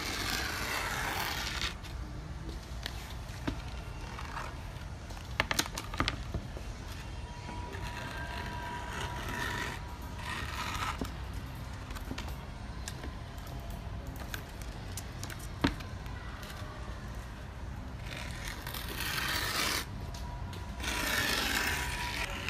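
Hands rubbing and scraping over skateboard grip tape, in several rough scraping bursts of a second or two each, with a few sharp clicks between them.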